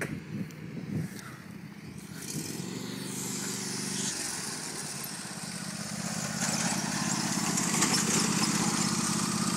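John Deere LA145 riding lawn mower's 22-horsepower engine running steadily, growing louder from about two seconds in and again near the middle.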